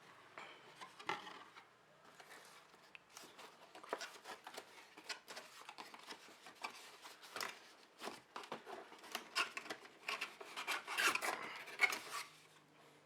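Cardboard box and packing material of a graphics card being handled and opened by hand: rubbing and scraping with a run of sharp clicks and taps, busiest and loudest near the end.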